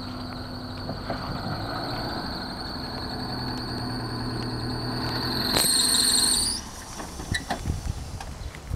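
A small 2000 Chevrolet Metro sedan pulling in and parking, with a steady high-pitched squeal over the low hum of its engine. The squeal rises slightly and cuts off about six and a half seconds in, leaving a few clicks and knocks.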